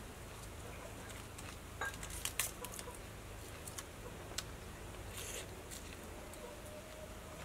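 Faint, scattered crisp snaps and rustles of fresh lettuce leaves being handled and folded into a wrap, then a crunchy bite and chewing near the end.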